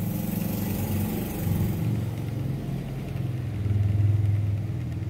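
An engine running steadily with a low, slightly wavering hum that swells louder about four seconds in.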